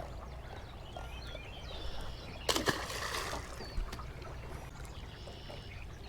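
A brief splash of water about two and a half seconds in, over a quiet trickle of river water.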